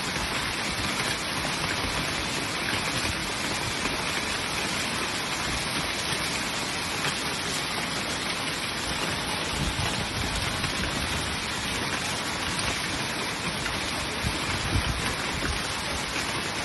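Rain mixed with small hail falling steadily on concrete pavement, an even hiss of many small impacts.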